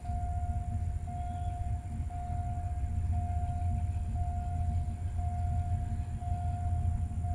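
Railway level-crossing warning alarm sounding one steady tone that breaks off briefly about once a second, over the low rumble of an approaching diesel train.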